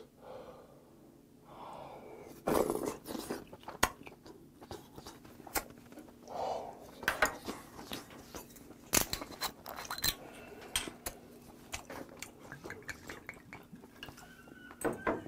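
Close-miked chewing of a mouthful of seonji haejangguk, with wet mouth sounds and irregular soft clicks. Near the end, soju is poured from a bottle into a shot glass.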